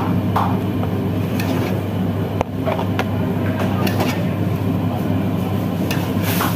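Steady drone of a commercial kitchen extractor hood, with a metal ladle scraping and clinking in a wok several times, one sharp knock about two and a half seconds in.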